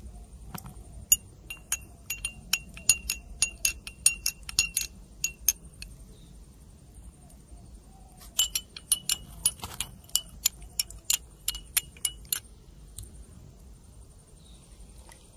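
A spoon clinking against the sides of a glass tumbler while stirring honey into the tea: two runs of quick, ringing clinks, the first about a second in and the second starting about eight seconds in.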